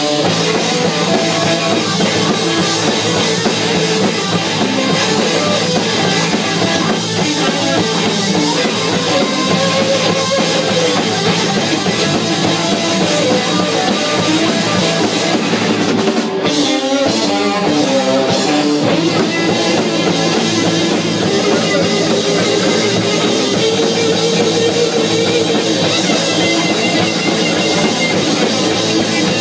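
Live rock band playing: electric guitars, electric bass and a drum kit.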